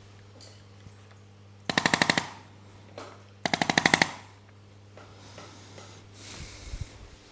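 Two short bursts of rapid, evenly spaced mechanical tapping from a percussive device, each about ten strikes in half a second, the second starting about two seconds after the first. A fainter hiss and a brief high squeal follow near the end.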